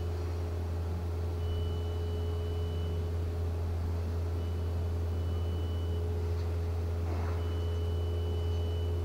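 A machine running steadily: a loud low hum with a fainter steady mid-pitched tone, and a high thin tone that sounds for about a second and a half, then stops, about every three seconds. The hum cuts off suddenly at the end.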